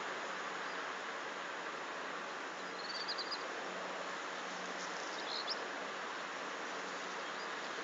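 Steady outdoor background hiss, with a quick run of four or five high chirps about three seconds in and a single chirp a little after five seconds, typical of a small bird calling.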